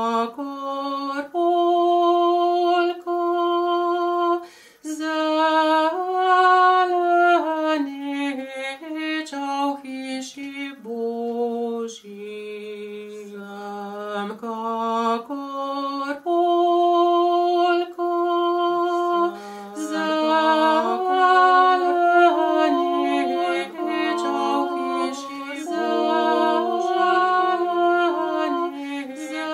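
Slow acoustic folk music from a small group, with one clear melody carried over a lower accompanying part.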